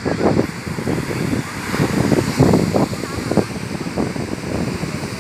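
Surf breaking on the beach with wind buffeting the microphone, and several people's voices calling and talking over it in short bursts.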